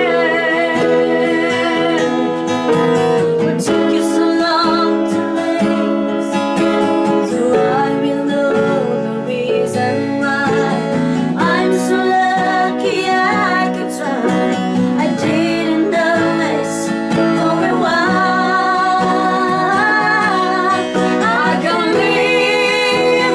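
Instrumental break of a pop ballad: acoustic guitar under a wavering melody line, playing continuously at a steady level.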